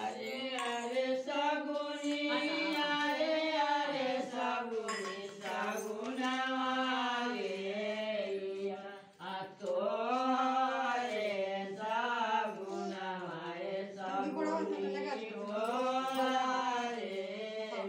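Women singing a traditional ritual song together, unaccompanied, in long drawn-out melodic lines with a brief pause about nine seconds in.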